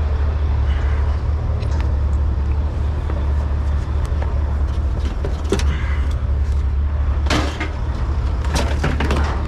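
A vehicle engine running steadily, with a few sharp knocks or clanks about five seconds in, around seven seconds and a quick cluster near the end.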